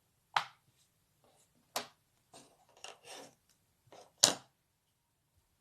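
Small objects handled on a hard surface: three sharp knocks, the last the loudest, with soft rubbing and clicks between them.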